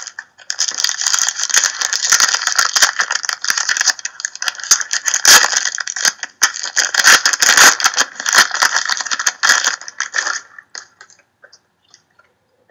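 Hockey card packs and cards being handled: a dense rustling and crinkling with many sharp clicks, thinning to a few scattered clicks after about ten seconds.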